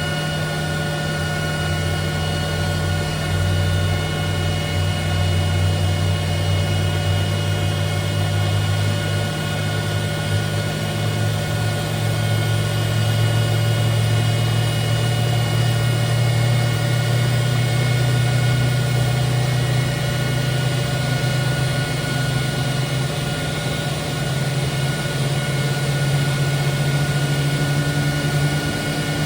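Jet air starter and Boeing 777F GE90-110 turbofan running during an engine start: a steady many-toned whine over a low hum that slowly rises in pitch.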